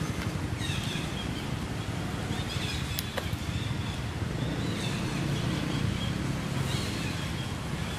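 Steady low rumble with several short, high chirps every second or two and a single sharp click about three seconds in.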